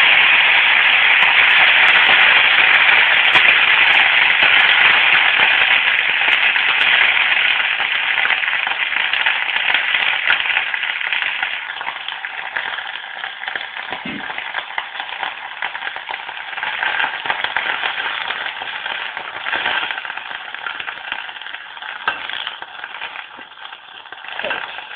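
Freshly washed fenugreek (methi) leaves sizzling and crackling as they sauté in a hot steel kadai. Loud at first, it slowly dies down as the leaves soften.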